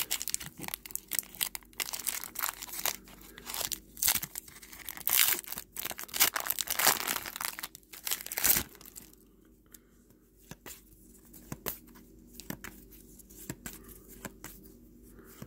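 Foil wrapper of a trading-card pack being torn open and crinkled: dense crackling for about the first nine seconds. After that come only soft scattered clicks of the cards being handled.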